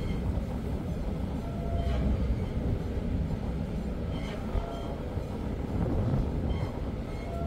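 Steady low rumble of ship noise on an open deck, engine rumble mixed with wind buffeting, with a few faint short squeaks.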